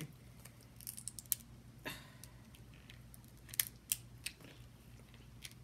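Crab leg shell being cracked and peeled apart by hand: a scatter of short, sharp cracks and snaps, a few louder ones among quieter crackling.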